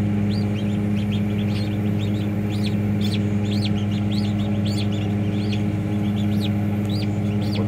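Newly hatched ducklings peeping, short high chirps several times a second, over a steady low electrical hum.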